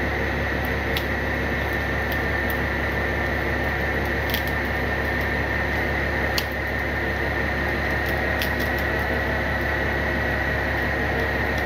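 Tow truck running steadily under winching load: a constant engine hum with a steady high whine over it and a few faint ticks.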